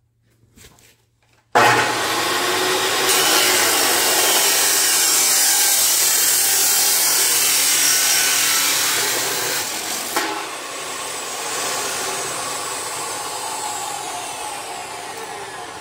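Makita abrasive chop saw cutting through steel exhaust tubing. It starts up suddenly about a second and a half in and grinds through the tube for about eight seconds. Then the blade is lifted out and the motor spins down, its pitch slowly falling and fading.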